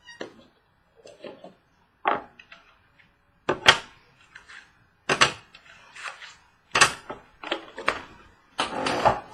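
Trading-card box being opened by hand: a series of short rips, rustles and crinkles from cardboard and plastic wrapping, about one a second.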